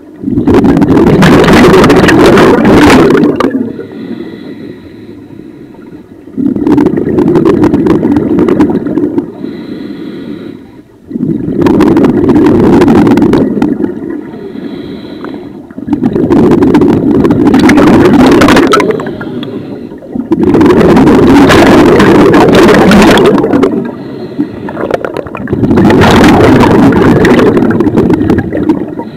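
Scuba breathing through a regulator underwater: six long loud rushes of exhaled bubbles, about one every four and a half seconds, with quieter inhales through the regulator between them.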